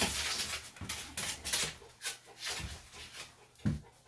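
Rustling and scuffling of a fidgety dog being held on the grooming table for its feet to be trimmed, with scattered clicks and a short low thud near the end.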